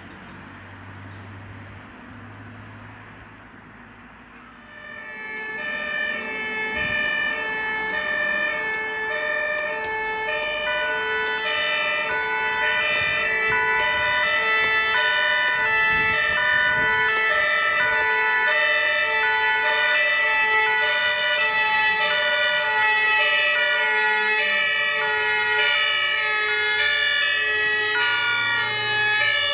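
Several two-tone sirens (German Martinshorn) on fire service vehicles, sounding together out of step with each other and alternating between two pitches, starting about four seconds in over traffic noise. They get louder fast as the convoy approaches, then stay loud.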